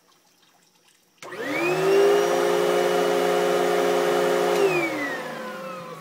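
Vacuum cleaner switched on about a second in, its motor whine rising quickly to full speed. It runs steadily for about three seconds, then is switched off and winds down with a falling whine.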